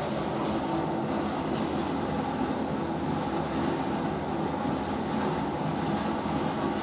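Western-style toilet flushing: water running steadily.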